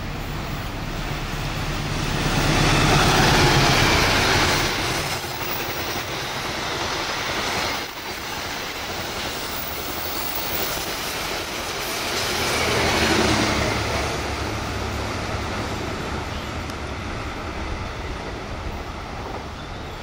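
Passenger train running past at speed: a diesel locomotive goes by with its engine drone, then the coaches rumble and clatter over the rails. The sound swells twice, about three seconds in and again about two-thirds of the way through, with a sudden drop near eight seconds, and fades as the train moves away.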